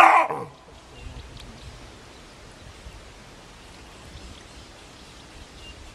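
Chacma baboon giving one loud bark right at the start, about half a second long and dropping in pitch. After it comes only a faint steady outdoor hiss.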